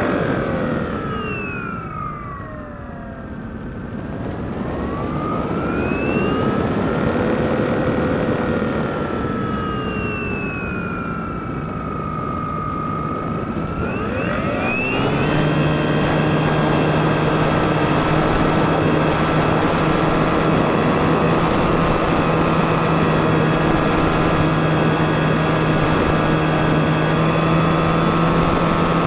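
Electric motor and propeller of a Skywalker FPV model plane heard from its onboard camera, with a rush of wind noise. The motor's whine sinks and swells in pitch over the first half as the throttle changes, then rises sharply a little past halfway and holds a steady high pitch.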